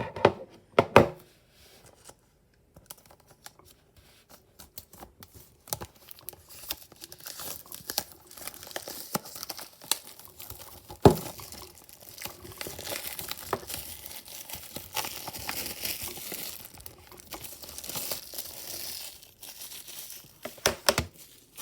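Plastic shrink-wrap on a Blu-ray case being torn and peeled off, crinkling steadily, with scattered clicks and one louder snap about halfway through.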